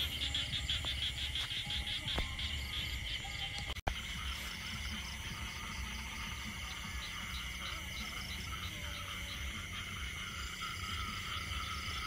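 Night chorus of frogs and insects calling in flooded rice fields: many rapid pulsing calls layered over one another, with a low rumble underneath. The sound breaks off for an instant about four seconds in.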